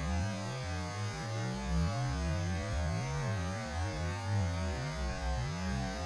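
A low, continuous hum made of several tones whose pitch keeps wavering and gliding up and down.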